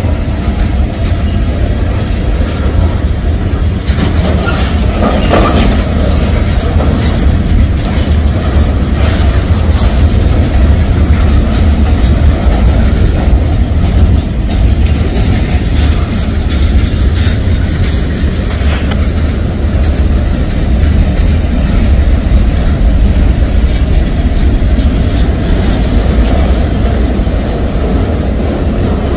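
Freight cars of a mixed freight train rolling past: a steady, loud rumble of steel wheels on the rails, with clicks as the wheels pass over rail joints.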